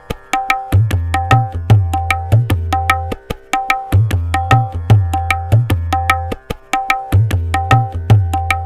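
Tabla pair, tuned to C, playing a fast 16-beat teentaal theka loop at 150 bpm. Crisp ringing strokes on the treble drum run at an even pace over the bass drum's deep booming strokes. The bass drops out briefly about every three seconds.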